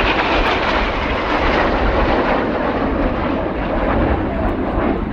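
Formation of BAE Hawk T1 jet trainers flying past: a loud, steady jet roar, with a high whine that falls in pitch and fades out in the first second.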